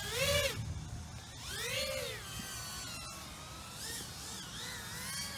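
Ducted cinewhoop FPV quadcopter's motors whining, the pitch swelling up and back down several times with bursts of throttle.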